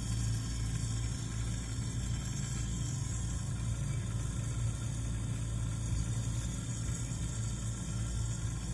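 Lampworking bench torch burning steadily, a hiss over a steady low machine hum.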